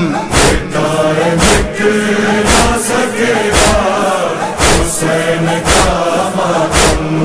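Voices chanting a nauha, an Urdu Shia lament for Husain, between the lead reciter's sung lines, over a heavy percussive beat about once a second.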